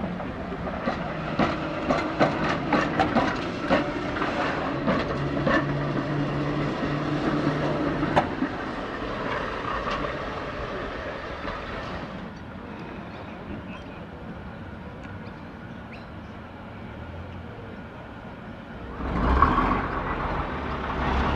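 Electric tram running on street track, its wheels clicking over rail joints with a steady motor hum, then fading to a quieter rolling sound. Near the end a louder engine comes in suddenly with a low, even throb, from a bus pulling alongside.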